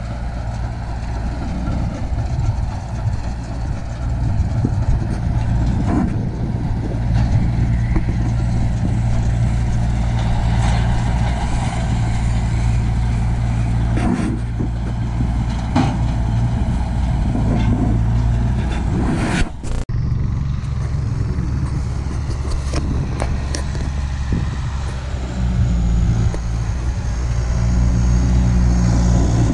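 Tractor engine running at steady revs, with a sudden break about two-thirds of the way through; near the end the engine note rises as it revs up.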